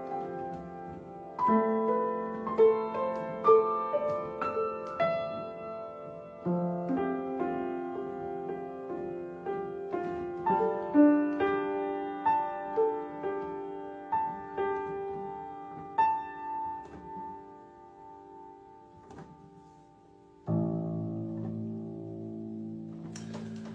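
Solo piano playing a slow piece, single notes and chords struck and left to ring. It thins to a quiet lull, then a held chord starts abruptly near the end.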